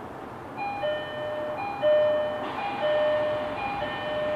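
Electronic two-tone chime repeating about once a second, a short high note followed by a longer lower one, over a steady background hiss of the train or station.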